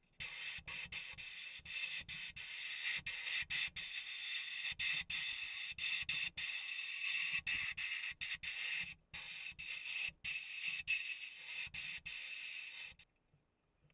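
Sandblast gun in a blast cabinet hissing as it strips rust and paint from a tin toy boat's hull, the blast broken by many brief gaps and stopping near the end.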